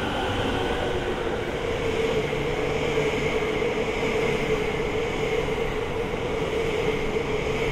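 JR East E261 series electric multiple unit passing through at speed close by: steady running noise with a steady whine over it.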